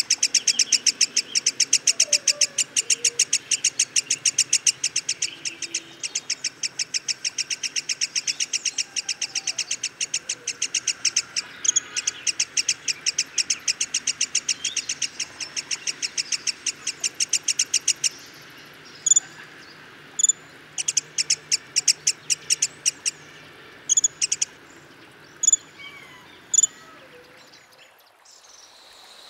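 Black-headed sibia calling: a long, fast series of short, high notes, about six a second. About two-thirds of the way through it breaks up into fewer, scattered notes.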